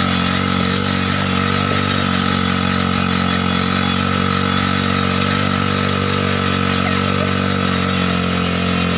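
Small engine idling steadily at an even pitch, with no revving.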